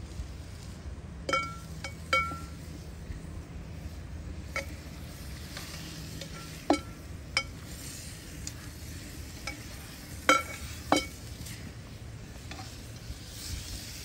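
A metal spoon stirring food in a metal cooking pot, clinking against the pot about eight times at irregular intervals, each clink ringing briefly. A faint sizzle of food frying runs underneath.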